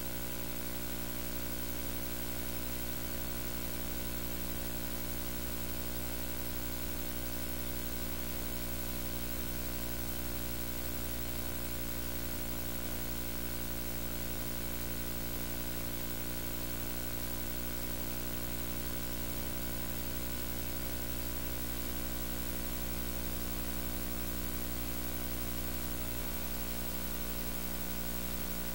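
Steady electrical hum made of many evenly spaced tones, under a constant hiss.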